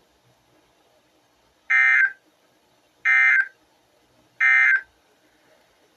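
Three short, evenly spaced bursts of Emergency Alert System SAME digital data tones from NOAA Weather Radio, each under half a second: the end-of-message code that closes the severe thunderstorm watch alert.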